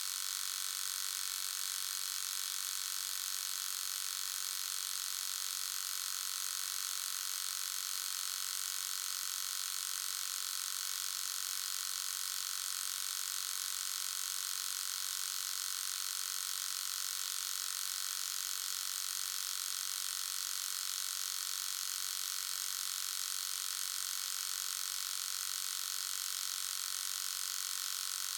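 Electric shaver motor running at a steady, unchanging high-pitched buzz.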